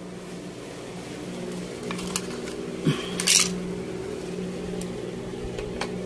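A steady low hum runs as a refrigerator's test setup is plugged in and switched on. A few light clicks come about two seconds in and a short hiss a little past three seconds. The inverter compressor does not start.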